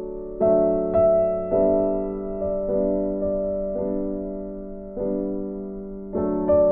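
Background instrumental music: slow keyboard chords, each struck sharply and left to fade, about one a second.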